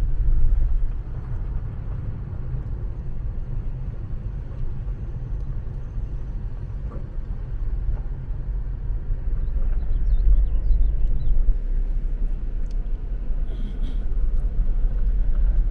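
Car cabin noise while driving slowly on a gravel road: a steady low rumble from the tyres on gravel and the engine, growing a little louder in the second half.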